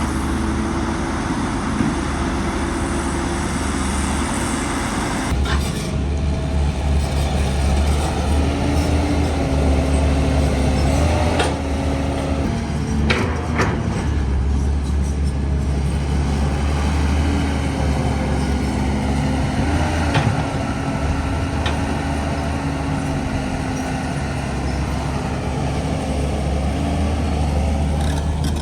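Heavy diesel earthmoving machinery running and working, with a deep, steady engine rumble whose pitch rises and falls under load. A few sharp metallic knocks sound partway through.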